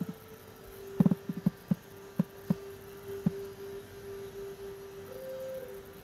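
Steady humming drone of background relaxation music, holding one low note with a brief higher note about five seconds in. A run of soft, short thumps of unclear origin sounds between about one and three and a half seconds in.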